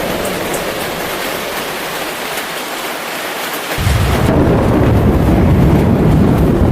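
Heavy rain hissing steadily. About four seconds in, a loud, deep rumble of thunder rolls in and carries on under the rain.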